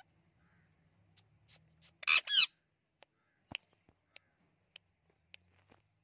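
Indian ringneck parakeet calling: a few short chirps, then two loud harsh squawks about two seconds in, followed by scattered short chirps and clicks.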